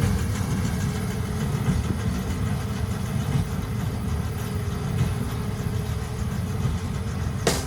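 Tractor engine running steadily while baling hay. Guitar music starts near the end.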